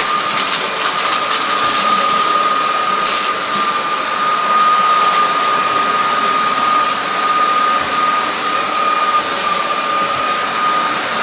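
Onson A10 Pro cordless stick vacuum running on its high-suction setting as it is pushed over an area rug: a steady high motor whine over an even rush of air.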